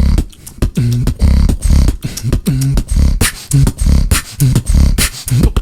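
Beatboxing with the snore bass, an inward snoring bass made by the vibrating uvula: deep bass notes in a steady rhythm, cut with sharp percussive clicks.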